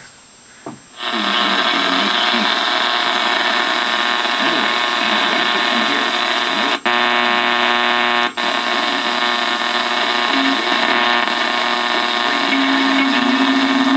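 Yaesu FT-1000MP transceiver's speaker giving a loud, steady buzz of power-line noise received on 80 meters, with a faint AM voice signal on 3885 kHz buried under it and unreadable. The buzz starts about a second in and drops out briefly twice near the middle.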